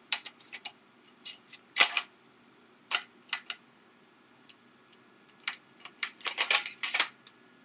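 Small plastic and metal parts of an Xbox 360 Slim's disc drive clicking and clacking as they are handled and slid back into place: scattered sharp clicks, with a quick run of them near the end.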